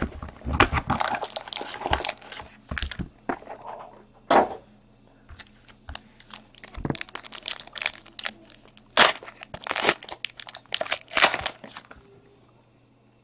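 Foil wrapper on a trading-card box crinkling and crackling in irregular bursts as it is pulled off and the packs are handled, with a few sharper snaps. It dies away near the end.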